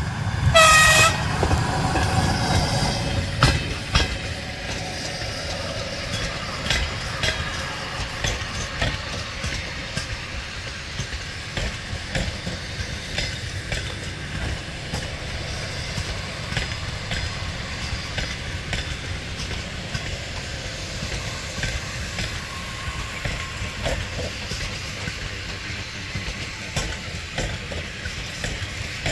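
ED4M electric multiple unit giving a brief high horn toot about half a second in, then its wheels rumbling and clicking over the rail joints as the train runs past and draws away.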